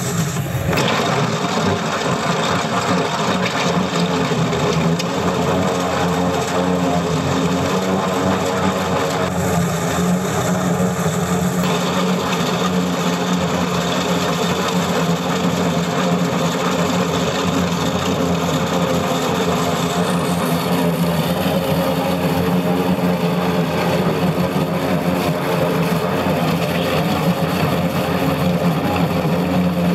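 Excavator-mounted Echidna hydraulic rock-saw wheel grinding steadily through very hard Muschelkalk limestone, with the excavator's diesel engine running under load. A loud, continuous mechanical noise with a steady low hum; the tone shifts slightly about 12 and 20 seconds in.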